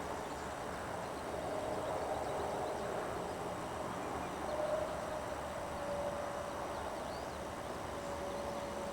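Faint outdoor ambience: a steady hiss with a thin, faint tone that comes and goes.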